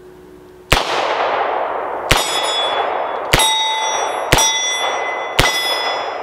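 Rock Island Armory AL3.1 .357 Magnum snubnose revolver firing .38 Special in double action: five shots about a second apart. After all but the first shot comes the ringing clang of a steel plate target being hit.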